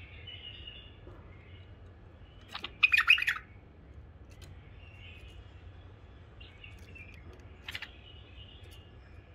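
Caged white-eared bulbul calling: soft chirping notes, a loud harsh chattering burst about three seconds in, and a single short sharp note near the end.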